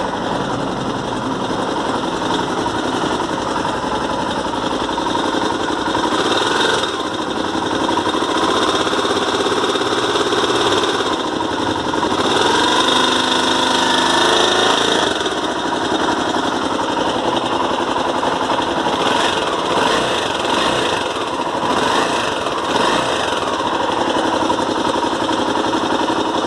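Honda Tornado 250's single-cylinder engine running, its speed rising and falling a little in the middle, with the engine noise the owner is trying to diagnose. The noise came back worse about 1,500 km after the cam chain was replaced with a non-original one.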